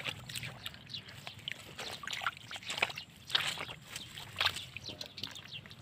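Shallow water splashing and trickling in short, irregular bursts.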